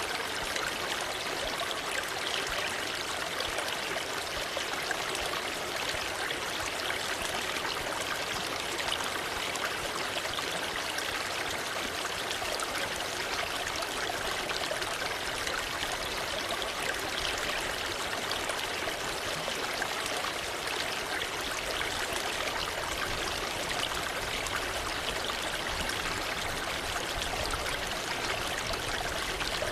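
Waterfall: a steady, even rush of falling water, with no breaks or changes.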